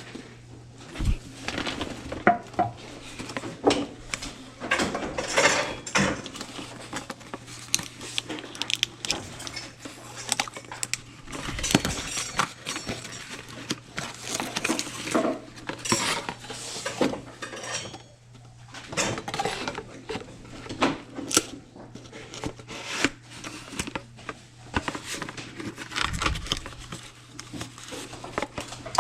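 Dishes and glassware clinking and knocking as they are handled and set down, an irregular clatter of many small hard strikes.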